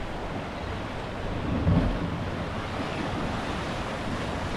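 Ocean surf washing against a rocky shoreline, with wind rumbling on the microphone; a louder low rush comes a little under two seconds in.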